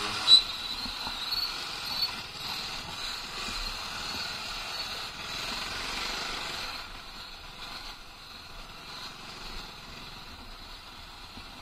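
Motorcycle riding slowly, its engine running low under road and wind noise, with a repeating high beep through the first half. There is a sharp click about a third of a second in, and the sound drops off a little from about seven seconds in.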